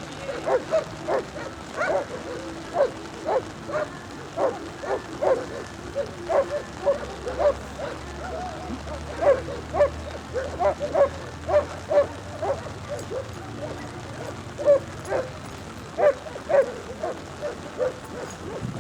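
A dog barking repeatedly on the handler's command to speak, about two barks a second, in a steady series.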